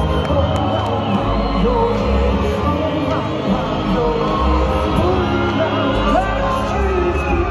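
Live synth-pop band music heard from within the audience: keyboards and pulsing bass with a singing voice, and some crowd shouting.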